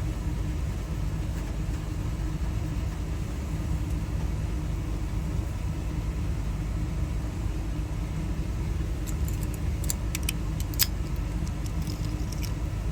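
Steady low rumble in the background, with a quick cluster of small metallic clicks in the last few seconds as small Ford door-lock parts are handled.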